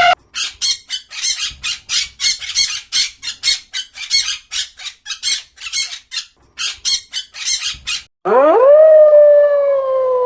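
A canine calling: a rapid run of short, high yelps, about three or four a second, for some eight seconds. Near the end a long howl rises sharply and then slowly falls in pitch.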